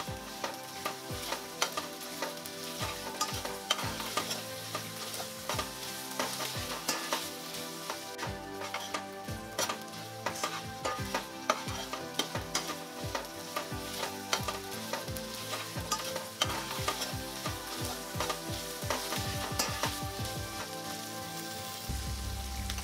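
Dry bombil (Bombay duck) pieces frying in oil with onion and potato in a stainless steel pan, sizzling steadily, while a metal spoon stirs and scrapes the pan with frequent clicks.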